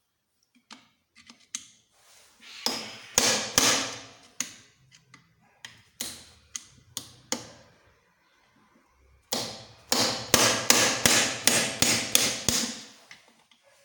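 Hammer blows on metal, in runs of several quick strikes with pauses between, each strike ringing briefly. The longest run, about three strikes a second, comes in the second half.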